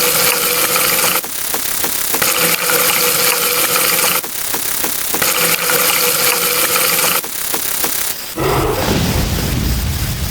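Sound effect of running water filling a bathtub, restarting about every three seconds. About eight seconds in it gives way to a deep roaring rush, a dragon-breathing-fire sound effect.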